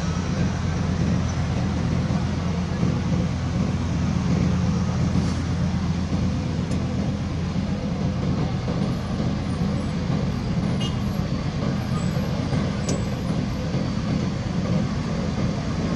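Hino truck's diesel engine running at low revs as the truck crawls slowly off the ferry ramp, a steady low rumble that barely changes, with a few faint clicks.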